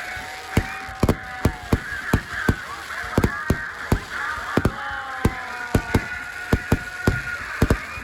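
Fireworks exploding overhead in rapid, irregular bangs, several a second, with wavering tones that glide up and down between them.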